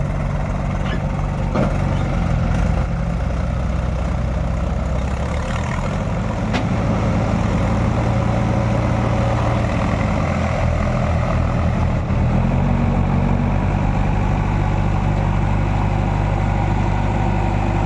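Diesel engines of a JCB 3DX backhoe loader and a tractor running. The engine pitch steps up and down a few times as the revs change, with two short knocks, one about a second and a half in and one about six and a half seconds in.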